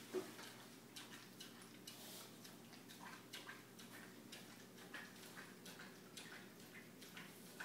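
A dog eating from a metal bowl through a mesh muzzle: faint, irregular clicking and tapping several times a second, with one sharper tap just after the start.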